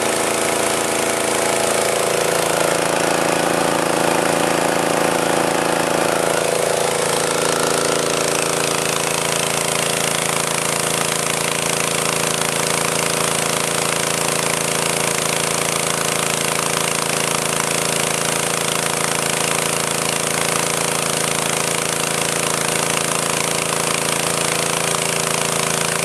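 H5.5AK150 high-pressure breathing-air compressor, driven by a small four-stroke petrol engine, running steadily while it pumps air into a scuba cylinder. Its tone shifts slightly a few seconds in, then holds even.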